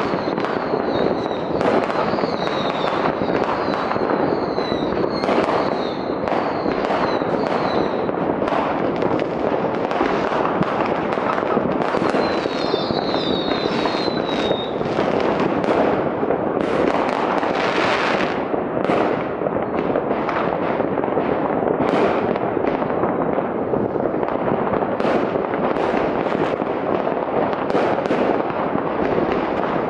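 Many fireworks and rockets going off at once across a city: a continuous din of overlapping bangs and crackles. Short falling whistles come through in the first several seconds and again around the middle.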